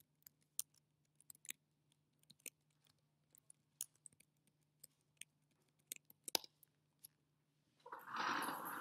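Computer keyboard keys clicking in short irregular runs of typing, over a faint steady hum. Near the end comes a brief louder rustling noise lasting about a second.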